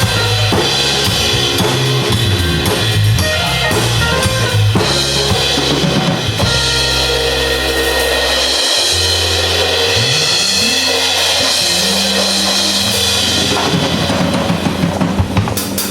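Live pop band playing an instrumental passage: drum kit with bass drum, snare and cymbals over bass guitar notes, with a sliding bass note about ten seconds in.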